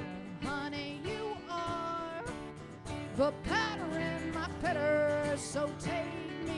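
Live song: a singer's voice over acoustic guitar, the melody moving between held notes and short slides.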